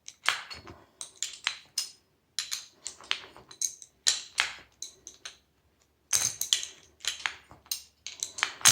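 Irregular sharp metallic clicks and clinks, a few a second with short pauses, from hand tools and metal parts of a hydraulic door closer as it is unscrewed.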